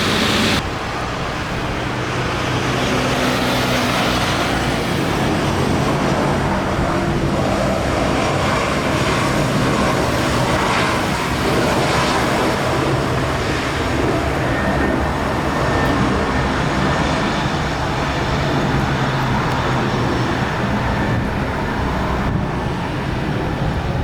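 Steady vehicle noise: an even rumble with a low engine hum underneath, unbroken throughout.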